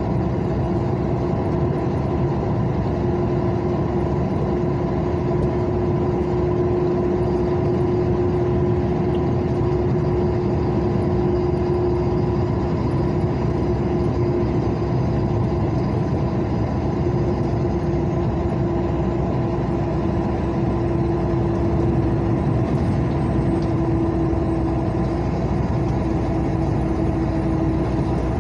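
Vehicle cabin noise while driving at highway speed: a steady engine hum with a constant whining tone over rumbling tyre and road noise.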